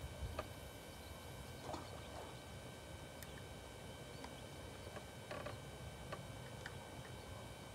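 Quiet outdoor background with a low rumble of wind, broken by a few faint clicks and brief rustles from a fishing rod and spinning reel being handled after a cast.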